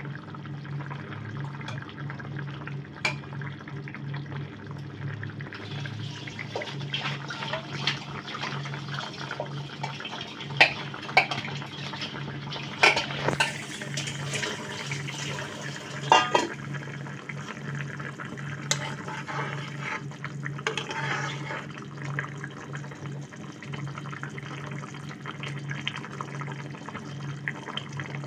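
Hilsa fish curry with taro and potatoes boiling hard in a pan, bubbling and spluttering, the fish pieces just added. A steady low hum runs underneath, and a handful of sharp clicks stand out in the middle.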